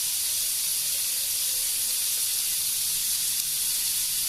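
Chopped onions, curry leaves and slit green chillies sizzling in hot oil in a kadai over a medium flame: a steady, even hiss.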